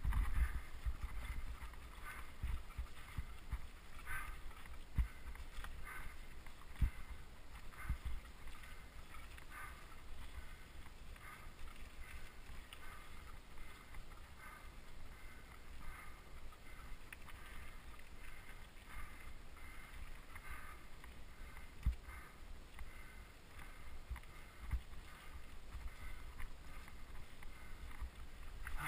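Mountain bike ridden over a rough, stony track: a steady low rumble full of small jolts and knocks from the rocks, with two sharper knocks, and a faint rhythm repeating a little under twice a second.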